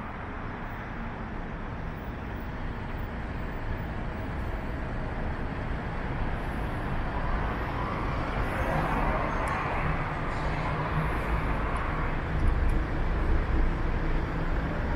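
Road traffic noise, steady, swelling louder partway through as a vehicle passes close by.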